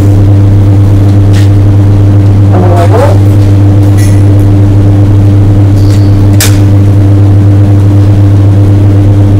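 Loud, steady low electrical hum of a TIG welding setup while a Hastelloy pipe is welded at about 93 amps, with a few faint ticks.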